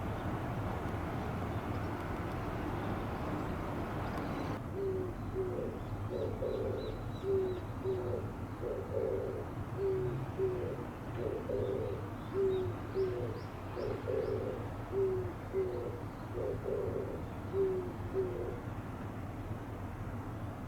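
Oriental turtle dove singing its low, hooting coo, one phrase of several notes repeated about six times, every two to three seconds, starting about four and a half seconds in. Before that there is a steady noisy background, which drops suddenly just as the cooing begins, and faint high chirps from a small bird sound now and then.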